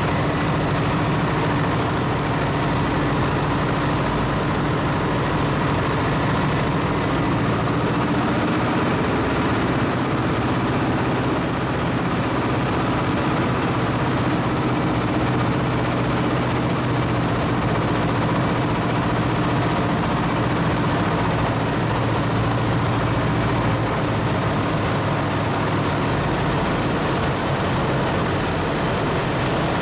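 Piper Super Cub's piston engine and propeller droning steadily in flight, heard from inside the cockpit together with a steady rush of wind.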